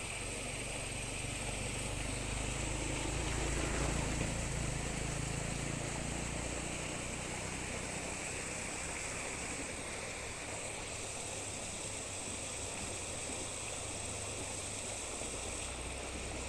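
Steady rushing of a waterfall and stream, swelling slightly about three to four seconds in.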